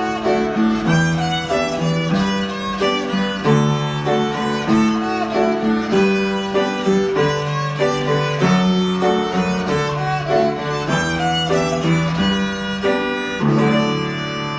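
Violin playing an Irish tune with a lower accompaniment beneath the melody, settling on a long held note that fades near the end.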